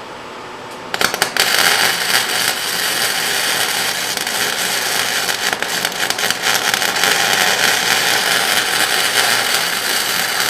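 Wire-feed welder arc crackling steadily as a bead is laid on zinc-coated steel, starting with a brief sputter about a second in and cutting off sharply at the end. A shop fan runs underneath.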